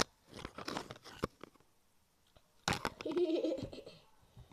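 Close-up crunching and rustling handling noise, with a sharp click at the start and a longer, louder stretch of crunching a little under three seconds in.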